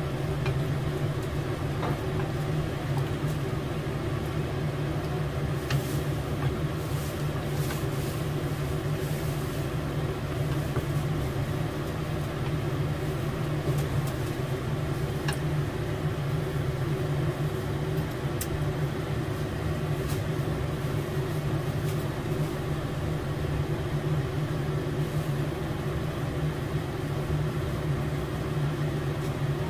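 Steady low mechanical hum that runs unchanged, with a few faint light ticks from a wooden spatula stirring pasta in a frying pan.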